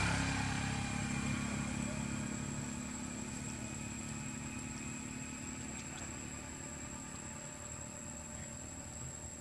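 A motorbike engine passing on the road, its steady hum fading slowly as it moves away, over a thin steady high-pitched tone.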